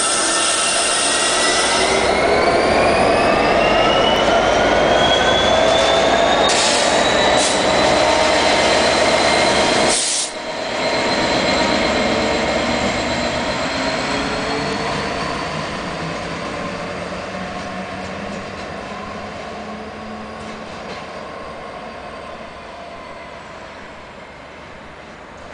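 A Class 66 diesel locomotive, with its two-stroke V12 EMD engine, pulling away running light, with a whine that rises in pitch over the first few seconds as it accelerates. After a brief break about ten seconds in, the sound fades steadily as the locomotive draws away.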